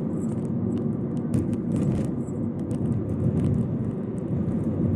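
Steady road and engine rumble inside a car cruising at about 70 km/h, with light scattered ticks over it.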